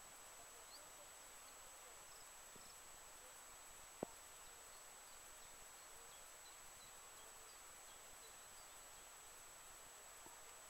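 Near silence: faint steady hiss of open-air room tone with a few faint, short, high chirps scattered through it and a single sharp click about four seconds in.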